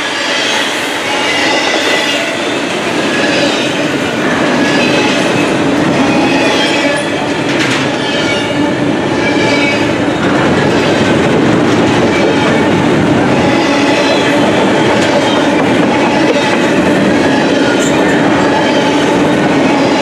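Freight train's double-stack intermodal well cars rolling past close by: a steady rumble and clatter of steel wheels on the rails, with wheels squealing now and then. A single sharp clank comes about seven seconds in.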